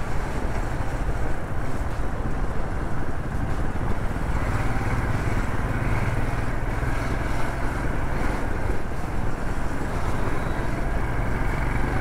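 Motorcycle engine running steadily at road speed, heard over a continuous rush of wind and road noise.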